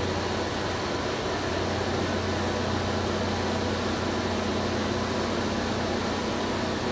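CNC milling machine running steadily as a tapered end mill cuts a metal compressor impeller, a constant hum with an even whirring hiss.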